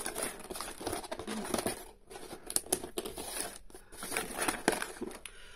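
Clear plastic tape and film on a cardboard doll-box insert crinkling and tearing as it is peeled and pulled away, in an irregular run of crackles and sharp clicks.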